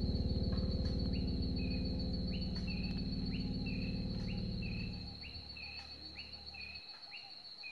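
Outdoor bush ambience: a steady high insect trill, with a bird repeating a short rising call about once a second. Soft background music with low held notes fades under it and stops near the end.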